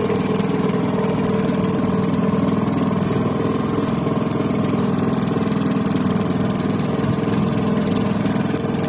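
Engine running steadily on an outrigger fishing boat: a constant, even drone.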